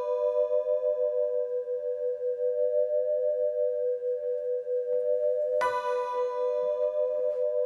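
Ambient music: a steady, slowly pulsing drone, with a struck bell-like tone ringing out and fading about five and a half seconds in.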